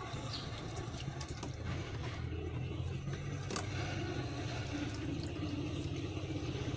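Water splashing and sloshing in a shallow plastic tub as a kitten is washed by hand, with scattered small splashes and clicks over a steady low engine-like rumble.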